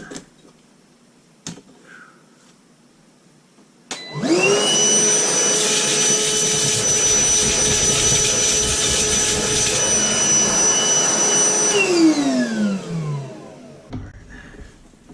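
A vacuum cleaner switched on about four seconds in and running steadily with a high whine for about eight seconds. It is then switched off, its whine falling in pitch as the motor winds down.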